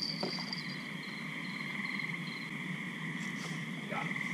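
Night chorus of frogs and insects: a steady pulsing trill with higher chirping on and off over it, with a couple of faint knocks near the start and near the end.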